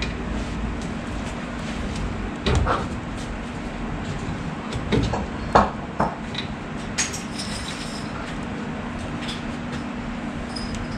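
Hand-disassembly of a VW Beetle front brake drum and wheel-bearing hardware: a few sharp metal clinks and knocks around the middle, one of them a loose nut dropped onto the concrete floor, over a steady low shop hum.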